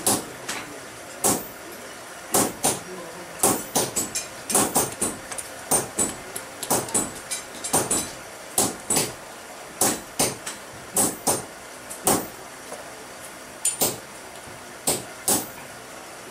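Hammer blows ringing on a steel hot punch driven into a red-hot steel billet on an anvil, about two strikes a second, irregular and sometimes in quick pairs: punching the handle eye of a ball-peen hammer head.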